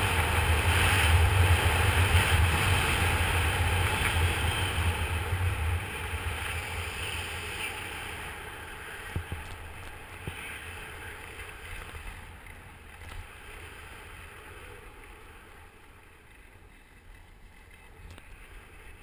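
Wind buffeting the microphone, together with skis hissing over groomed snow while skiing downhill. It is loud at first with a low rumble, then fades steadily after about six seconds to a quieter hiss.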